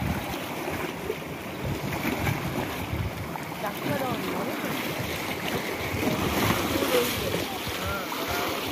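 Sea waves washing against shore rocks, with wind buffeting the microphone.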